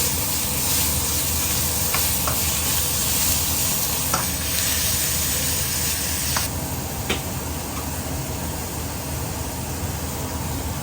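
Beef sizzling as it fries in hot oil in a pan, stirred with a utensil that clicks against the pan a few times. The sizzle eases slightly about six and a half seconds in.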